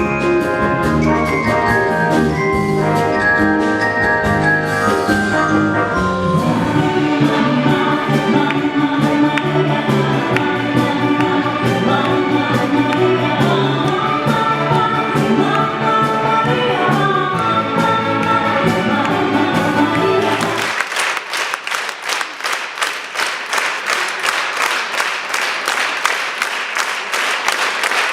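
Estrada orchestra playing with singing voices, the number ending about two-thirds of the way in, followed by audience applause.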